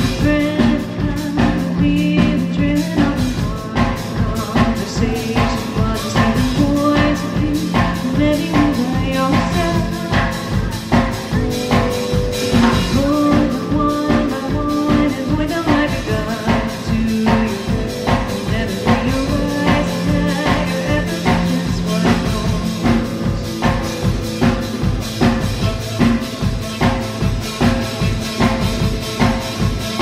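Live rock band playing with a steady drum beat under electric guitar, electric bass and cello.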